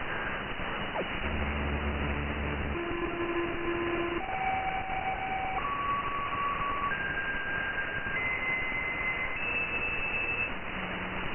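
Radio receiver hiss with a series of steady electronic tones stepping upward in pitch, six of them, each held about a second and a quarter. They follow a lower buzzing tone about a second in. It is the unidentified signal received on 146.328 MHz.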